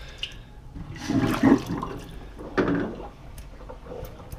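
A sink full of water draining through a newly installed garbage disposal once the stopper is pulled, with loud gurgles about a second in and again near two and a half seconds. It is the draining stage of a water test on the disposal's plumber's-putty flange seal.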